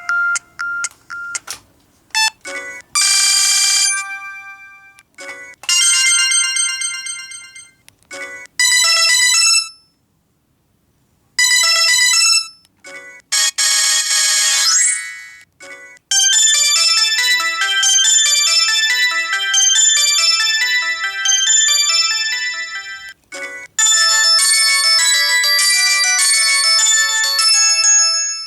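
Samsung D900i (SGH-D900) mobile phone ringtones playing one after another through the phone's speaker. Several short electronic jingles come in quick succession with brief pauses between them, then two longer melodic tunes fill the second half.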